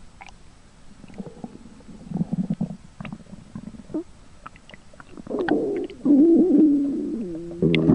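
A pet skunk's stomach growling: soft, low gurgling rumbles at first, then louder, wavering gurgles in the second half.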